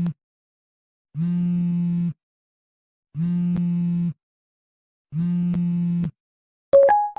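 Telephone ringback tone: a low, buzzy tone sounding for about a second at a time, four times, with a second of silence between rings. Near the end come two short beeps, the second higher than the first.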